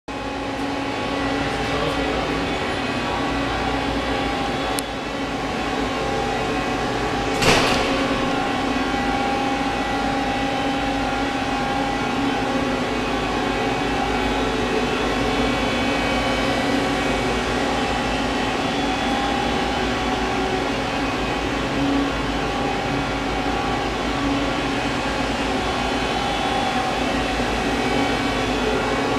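Steady machinery hum made up of several steady tones, with one sharp click about seven and a half seconds in.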